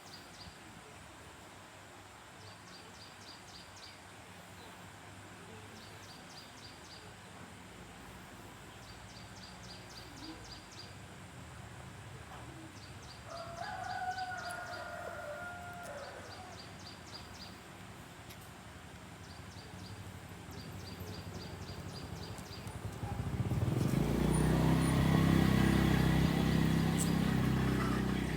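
Rural background with rhythmic high chirping in short groups about every two seconds and a brief animal call around the middle. Near the end a louder, low, steady machine rumble starts and stays the loudest sound.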